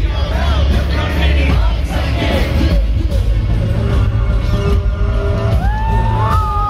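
Live hip-hop concert music over an arena PA, heard from the crowd: a live band with heavy bass and drums under rapped vocals. Near the end a held note steps up in pitch.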